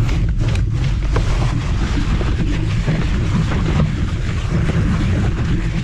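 MS Energy X10 electric scooter riding over a rough, leaf-covered dirt trail: a steady rumble of tyres and rattling frame, with wind buffeting the microphone.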